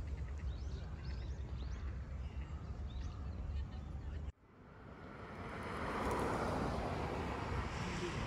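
Outdoor ambience: a low rumble of wind on the microphone with faint high chirps, which cuts off abruptly about halfway through. Then a steady rush of street noise fades in and holds.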